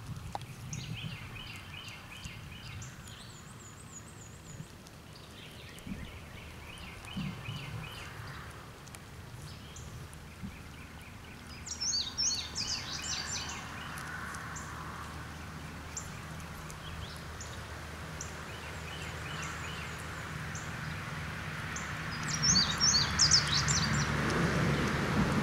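Wild songbirds calling in short repeated trills and chirps, loudest about halfway through and again near the end, over a steady low outdoor hum.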